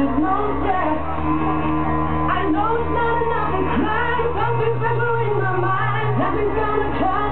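Loud house dance music with a sung vocal, over a held bass line that moves to a new note every second or two.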